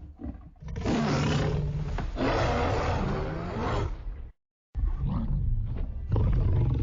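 King Kong roar sound effect from the Monsterverse films: one long, loud roar of about three and a half seconds, cut off sharply, then after a brief dead-silent gap a second Kong roar clip begins.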